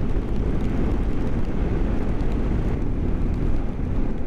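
BMW GS motorcycle riding at a steady cruise: a low, steady engine and road rumble with wind noise over it.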